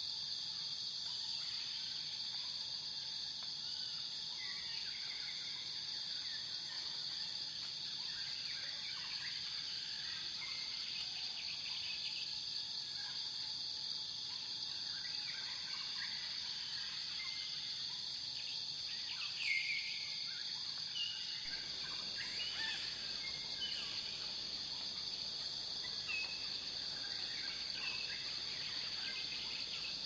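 Nature ambience: a steady high insect drone with scattered short bird chirps, the loudest chirp about two-thirds of the way through.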